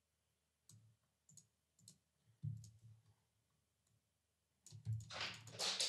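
A few faint computer mouse clicks while sliders are dragged, then a breath drawn in near the end.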